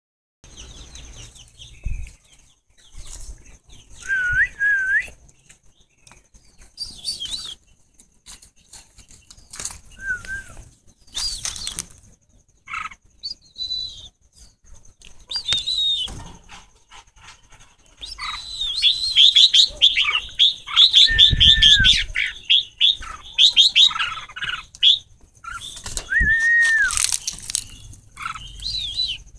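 Red-whiskered bulbuls calling in an aviary: scattered short whistled and chirped notes, then a fast run of chirps over several seconds about two-thirds of the way through. Sharp knocks and rustles come in between.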